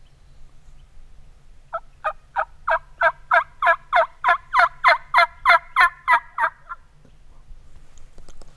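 A run of about fifteen turkey yelps, evenly spaced at roughly three a second, growing louder as the series goes on and stopping about seven seconds in.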